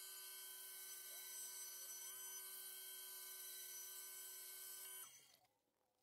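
Bandsaw running with a faint, steady whine of several tones as a wooden block is cut; the sound stops abruptly about five seconds in.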